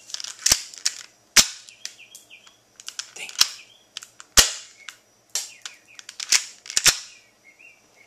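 Sharp plastic-and-metal clicks and snaps of an airsoft gun being handled and readied: about seven loud clicks at irregular intervals, two close together near the end, with smaller ticks in between. A bird chirps faintly in the background.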